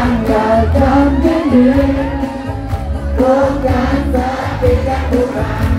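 Loud music with singing over a strong, steady bass beat.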